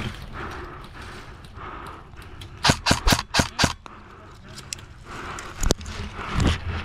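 Airsoft gun firing about five sharp shots in quick succession around three seconds in, then one more near the end. Between them, fir branches scrape against the gun and camera, over regular heavy breathing behind a mask.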